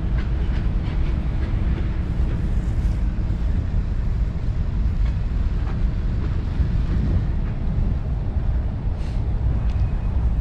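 Steady low rumble of wind on the microphone and wheels rolling over pavement while riding a Lime electric scooter, with light clicks and rattles now and then.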